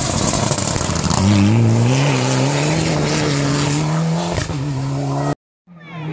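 Rally car on a gravel stage sliding past at speed, with gravel and tyre noise at first. The engine then comes in about a second in, its note climbing and then held on throttle, with a short drop near the end. The sound cuts off abruptly, and another rally car's engine fades in at the very end.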